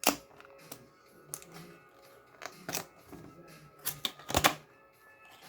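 A mouse's retail box being opened by hand: a sharp snap right at the start, then scattered clicks and taps of cardboard and plastic packaging, with a louder cluster about four seconds in. Faint background music runs underneath.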